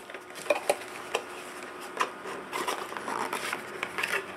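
Small cardboard processor box being opened by hand: flaps and the inner tray scraping and rubbing, with scattered light clicks and rustles of packaging.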